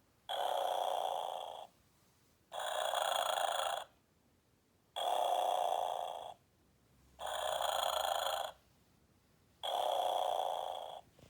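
Snoring Santa plush toy playing its snoring sound: five evenly spaced snores, each a little over a second long, about every two and a half seconds.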